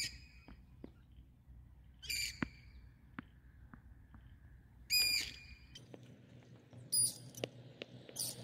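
A tennis ball bouncing on a concrete path, heard as a series of faint, light taps. Over the taps a bird calls loudly about five times, in short high calls.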